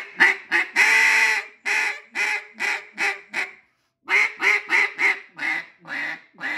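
Nose Dive double-reed duck call blown in hen-mallard quacks: a long drawn-out note about a second in, then a string of shorter quacks that trails off. After a short pause near four seconds in, a second string of quacks follows, ending lower in pitch.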